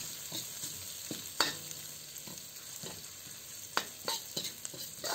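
Sliced onions and garlic sizzling in hot oil in a wok, stirred with a metal spatula that scrapes and clicks against the pan a few times.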